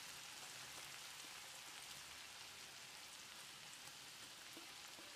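Faint, steady sizzle of masala-coated grated coconut frying in hot oil.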